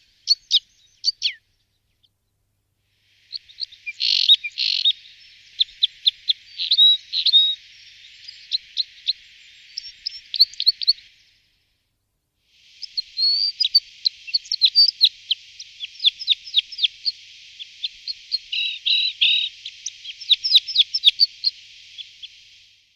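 Birds chirping: rapid series of short, sharp chirps and twitters over a faint hiss, in a brief burst, then two long runs broken by short silent gaps.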